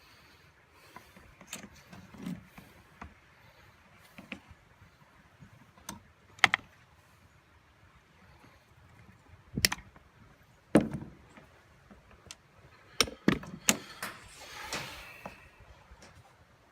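Scattered clicks and knocks of metal hand tools and cable parts being handled and set down, with a short rustle near the end.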